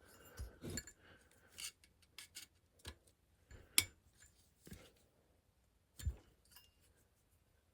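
Scattered clicks, clinks and light knocks of a flathead screwdriver prying at retaining clips on a lawn mower engine. A sharp click a little under four seconds in is the loudest, and a duller knock comes about six seconds in.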